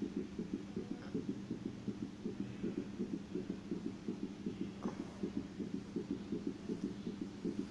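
Simulated fetal heartbeat played by an obstetric training mannequin: a rapid, regular, low-pitched pulsing beat. It is counted at about 120 beats a minute, a normal fetal heart rate.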